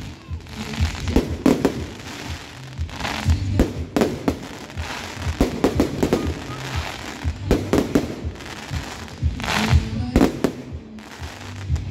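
Fireworks display: aerial shells bursting in an irregular series of sharp bangs, some followed by a brief crackling hiss.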